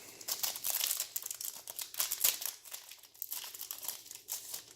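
Foil wrapper of a trading card pack crinkling as it is torn open and pulled apart, a dense run of sharp crackles that thins out toward the end.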